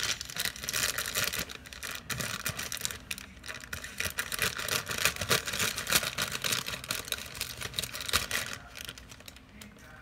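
Thin plastic bag of powdered brownie mix crinkling and rustling as it is gripped and cut open with scissors, a dense run of crackles that eases off near the end.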